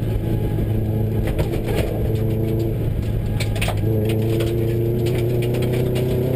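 Subaru rally car's engine running under load, heard from inside the cabin, with gravel crackling against the underbody. The engine note steps up in pitch about four seconds in and keeps rising slowly.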